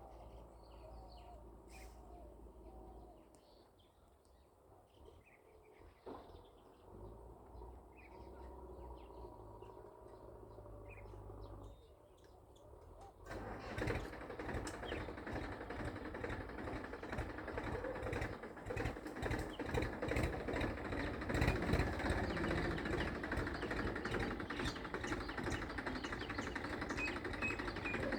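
Birds chirping over a faint low hum. About halfway through, a Massey Ferguson tractor's engine comes in suddenly and loud, running with a fast, even chatter while pulling a plough.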